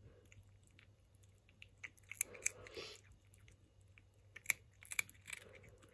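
A cat eating dry kibble from a hand, with faint crisp crunches as it chews, in two bouts about two seconds in and again near five seconds.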